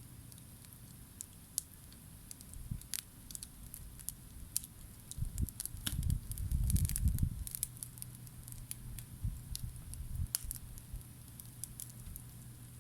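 Wood campfire crackling, with scattered sharp pops and ticks. A low rumble swells for a couple of seconds around the middle, over a steady low hum.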